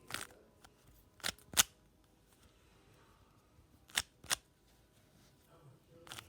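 Plastic speed cube being turned by hand: a handful of sharp clacks as its layers snap round, mostly in quick pairs.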